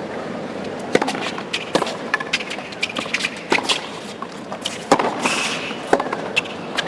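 Tennis rally on a hard court: a series of sharp racket-on-ball hits, roughly one a second, with the ball's bounces between them.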